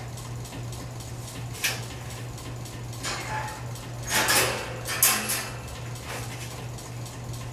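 Wire dog crate clinking and rattling in a few short bursts as a hand works at it, over a steady low hum.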